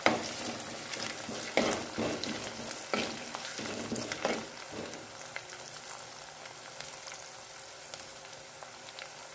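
Curry leaves, green chillies and ginger-garlic sizzling in hot coconut oil in a clay fish-curry pot (meen chatti). A spatula stirs, scraping and knocking against the pot several times in the first half, and then the frying goes on as a steadier, quieter sizzle.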